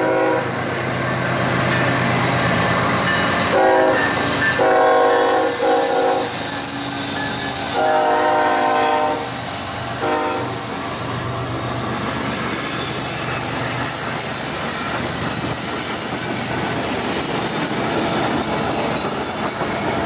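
Norfolk Southern freight train led by two GE diesel locomotives, its horn sounding four blasts, short and long, starting about three and a half seconds in and ending about ten seconds in, over the steady rumble of the train.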